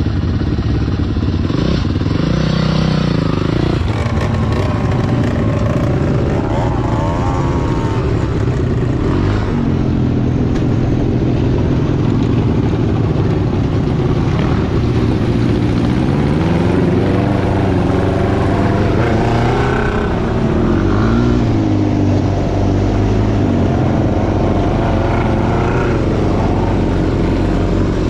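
Dirt bike engine running under the rider, its revs rising and falling again and again as the bike pulls away and rides over rough, muddy ground.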